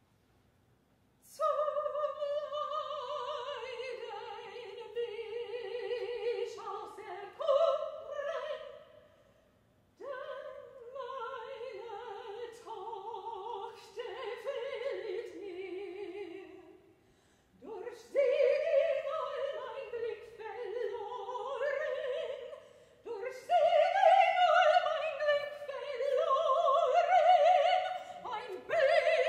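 A woman singing unaccompanied in an operatic style: long sustained notes with vibrato, in four long phrases with short breaths between them, the first two drifting downward in pitch.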